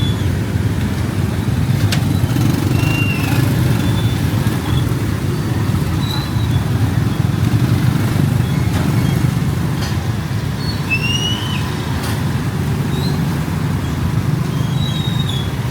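Steady rumble of road traffic, vehicles passing close by, with a few brief high chirps and a couple of sharp clicks over it.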